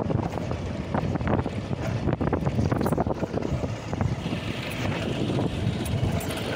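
Honda Unicorn single-cylinder motorcycle running while ridden over a potholed dirt road, with wind buffeting the microphone. Irregular knocks and rattles come from the jolts over the bumps.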